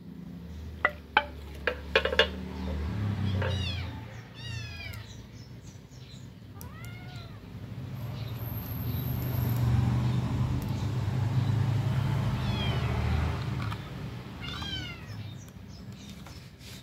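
A cat meowing several times in short, rising-and-falling calls, over a low rumble that swells through the middle. A few sharp clicks come near the start.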